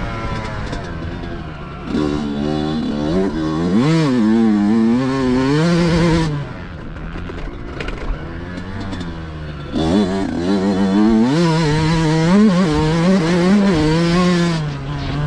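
Yamaha YZ motocross bike engine under hard throttle, heard from on the bike. Its pitch climbs and drops again and again through two full-throttle runs, with a quieter stretch in the middle as the rider backs off.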